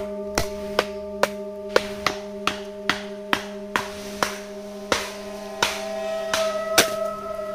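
Background music: sustained drone tones under a regular tapping beat of about two to three clicks a second, with a new higher tone joining about six seconds in.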